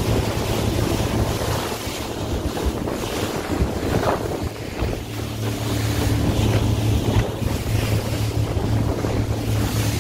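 Motorboat under way: a steady low engine drone under wind buffeting the microphone and water rushing along the hull.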